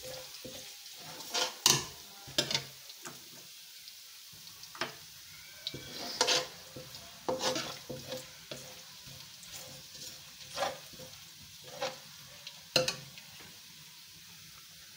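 Crushed garlic sizzling in hot oil in a steel wok as it begins to turn golden brown. A slotted spoon stirs it, scraping and knocking against the pan about ten times at irregular intervals.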